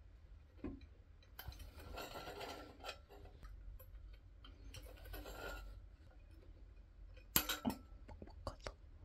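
Objects being handled: two stretches of rustling and a few sharp clicks or knocks, the loudest a pair of clicks near the end.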